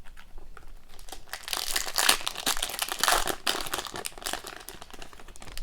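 Crinkling of a foil hockey-card pack wrapper being handled and crumpled, with many small irregular crackles, busiest in the middle.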